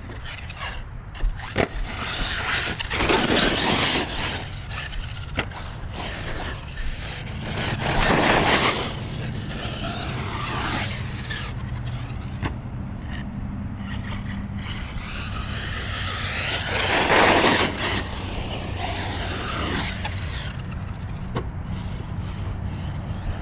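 Brushless motor of a 6S Arrma RC basher truck whining up and down in three main bursts of throttle, with dirt crunching and rattling under the tyres between them.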